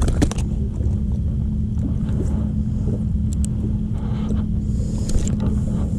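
Steady low hum of a bow-mounted electric trolling motor running, with a few light clicks near the start and around the middle.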